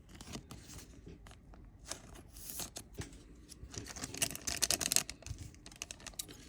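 Trading cards and their thin foil pack being handled: papery sliding, scraping and small clicks as the cards are leafed through, with a denser flurry of scraping and crinkling about four to five seconds in.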